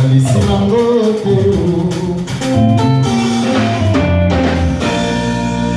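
A man singing a Congolese rumba song over band music with drums and guitar; the wavering vocal line gives way about halfway through to steady held notes.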